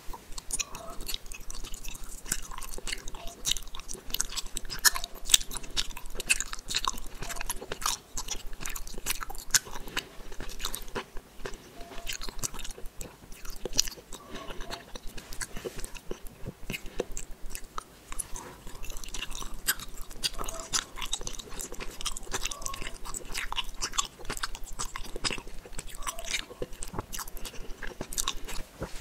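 Close-miked mouth sounds of chewing gummy candy: a dense, continuous run of small clicks and squishes as the gummies are bitten and worked in the mouth.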